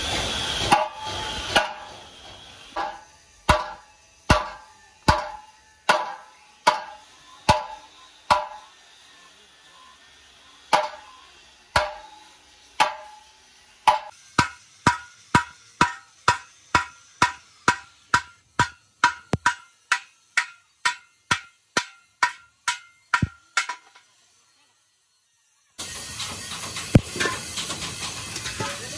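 Hammer blows on a road roller's steel wheel rim, each strike ringing sharply. The strikes come slowly at first, about one every 0.8 s, then speed up to about two a second with a higher ring, and stop a few seconds before the end. After a brief silence, a steady hiss with a few clatters takes over near the end.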